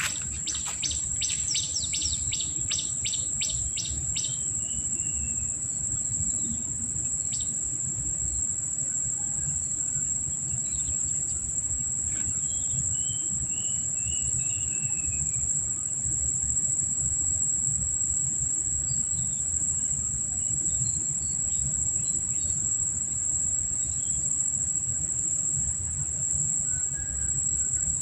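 A steady, high-pitched insect drone with scattered bird chirps, including a quick run of ticks in the first few seconds and a short falling series of notes about halfway through, over a continuous low rumble.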